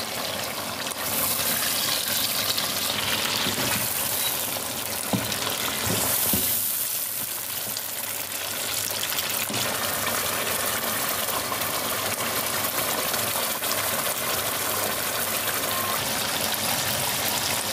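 Chicken pieces and tomato paste sizzling in hot oil in a metal karahi, a steady hiss, with a wooden spoon knocking and scraping against the pan a few times about five to six seconds in as the mixture is stirred.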